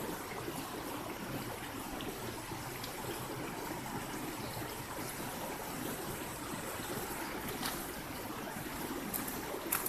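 A shallow river flowing steadily, with water running and trickling over the bed. A couple of faint clicks late on.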